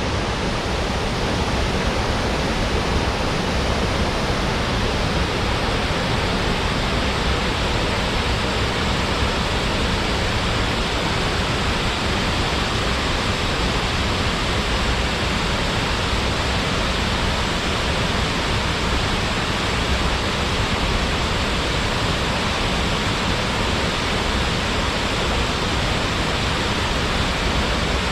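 Waterfall: water falling and splashing in a loud, steady, even rush with no breaks.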